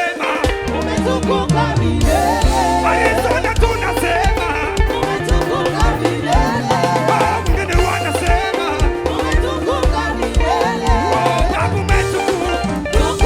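Live gospel band playing an upbeat African-style groove: bass and drums keep a steady beat under a wavering melodic lead line.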